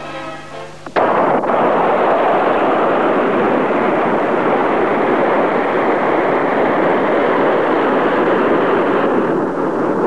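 Brass-led orchestral music that stops abruptly about a second in, giving way to a loud, steady roar of surf breaking on a rocky shore.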